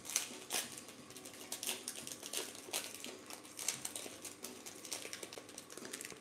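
Foil trading-card pack wrapper crinkling and tearing open in the hands: a rapid, irregular run of sharp crackles. Near the end the cards are slid out of the opened wrapper.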